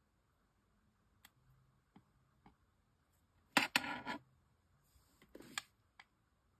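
Tabletop craft handling at a cutting mat: a few faint clicks, then two short scuffing, rustling noises about three and a half and five seconds in, the first the louder.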